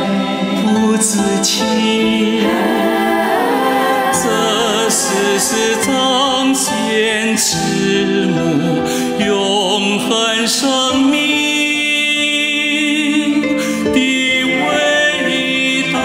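A song sung by a chorus of voices with wavering vibrato over instrumental accompaniment.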